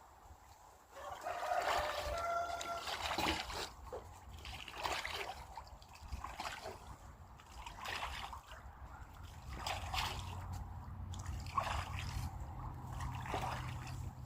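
A pet goose and duck splashing in their water, making short irregular splashes and trickles. A faint steady low hum joins about ten seconds in.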